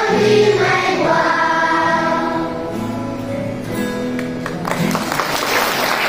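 Children's choir singing a hymn in unison, with acoustic guitar accompaniment. About five seconds in the singing gives way to a broad wash of noise.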